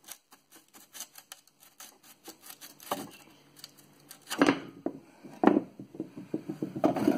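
A rusted backsaw blade scraping and clicking as it is worked free of its wooden handle, with three louder knocks in the second half. The fasteners have rusted in, so the blade sticks in the handle.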